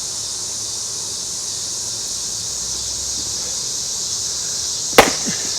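A steady high chirring of insects, then about five seconds in a single sharp axe blow as a 2-pound Council Tool boy's axe strikes a Scots pine log, landing off its intended spot.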